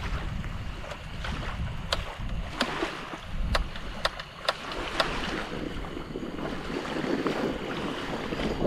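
Wind buffeting the microphone and small waves washing on the shore, with a run of sharp clicks and clacks, about six in three seconds, as a folding two-burner propane camp stove is handled and fitted together.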